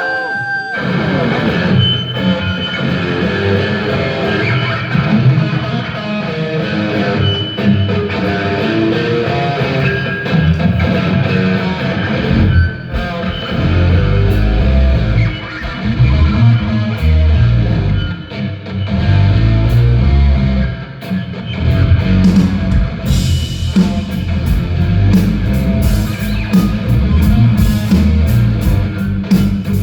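Rock band playing an instrumental passage: guitar over bass and drums. The bass and drums come in harder about twelve seconds in, and sharp cymbal hits join about twenty-three seconds in.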